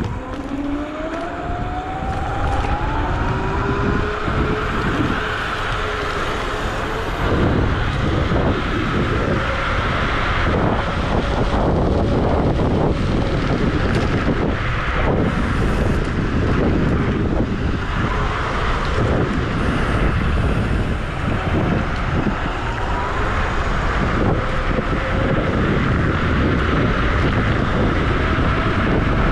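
Wolf Warrior electric scooter's dual hub motors whining, rising in pitch as it pulls away and gathers speed. Heavy wind rush on the microphone follows at speed, and near the end the motor whine climbs again.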